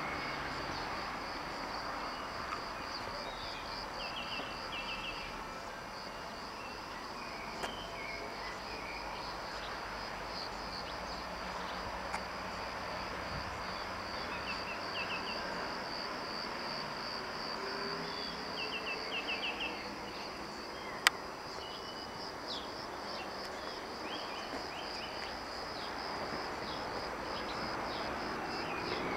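Crickets chirping steadily in a continuous pulsing chorus, with a few short higher chirps scattered through it. One sharp click about three-quarters of the way through.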